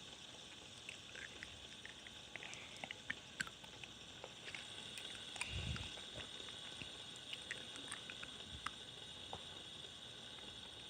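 Faint, steady high whir of a white fidget spinner turning on its bearing, with scattered small clicks and a soft low thump about six seconds in.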